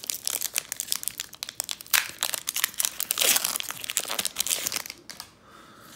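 A foil Pokémon booster pack wrapper being torn open and crinkled by hand, a dense crackling that is busiest in the middle and dies down near the end.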